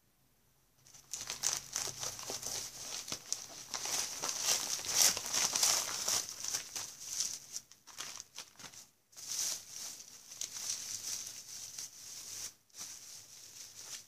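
Plastic mailer bag and bubble wrap crinkling and tearing as they are opened and handled, in dense irregular crackles that start about a second in, with a few short pauses in the second half.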